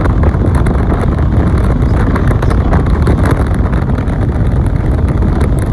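Steady wind rumble buffeting the microphone, mixed with tyre and road noise from a car driving along.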